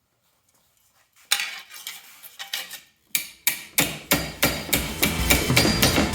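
Hammer blows on sheet metal: a few scattered strikes, then a regular run of about three blows a second. Music with steady low tones comes in under the blows near the end.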